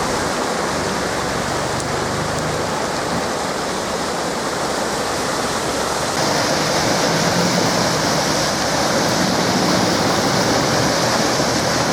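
Heavy rain pouring down with floodwater running, a steady rushing hiss of water that grows louder about six seconds in.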